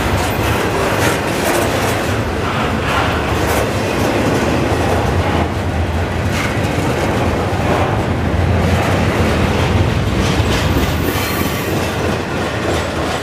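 Canadian Pacific double-stack intermodal freight train's well cars rolling past, their wheels rumbling and clacking over the rail joints. The last car goes by near the end and the sound begins to drop away.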